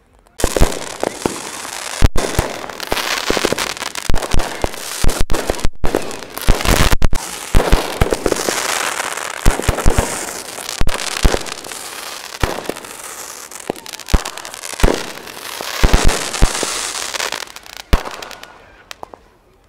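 Fireworks display: a dense run of bangs and crackling bursts that starts suddenly about half a second in, goes on without a break, and thins out near the end.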